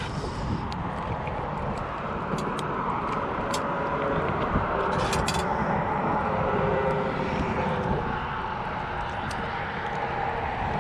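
Steady engine drone that swells over several seconds and eases off near the end, like traffic or an aircraft passing. A few short clicks sound over it, with a small cluster about halfway through.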